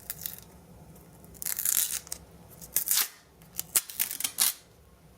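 Packaging being torn and crinkled open by hand, in several short bursts of rustling and tearing.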